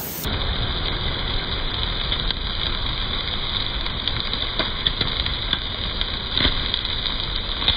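Meat sizzling on a wire grill over a wood campfire, a steady rumbling hiss with occasional sharp crackles and pops from the fire.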